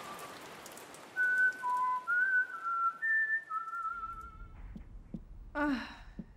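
A whistled melody of single held notes with a slight waver, stopping about four and a half seconds in. Near the end comes a brief voice-like note falling in pitch over a low room hum.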